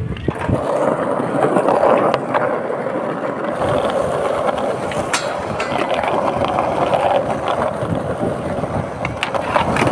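Skateboard wheels rolling over rough concrete: a steady rolling noise, with a few sharp clicks.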